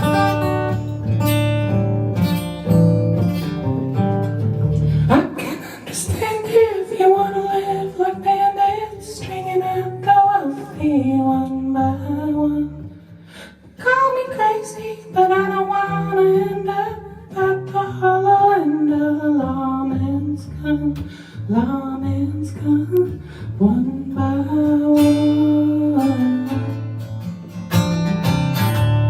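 A band's music with acoustic guitar strumming; about five seconds in, a wavering melody line enters over the chords, and the dense strumming comes back near the end.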